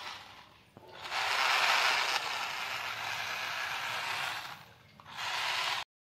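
Toy remote-control car's small electric motor and plastic gears whirring as its wheels spin freely, the car held up off the floor. The whirr fades out at the start, runs again from about a second in until around four and a half seconds, and comes back in a short burst near the end.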